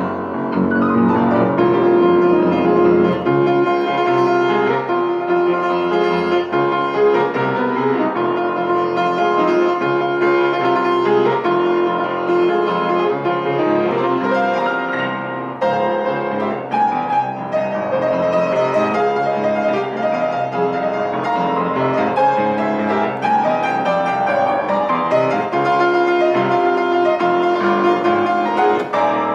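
Solo piano playing a pop-song arrangement: a continuous stream of chords and melody notes without pause.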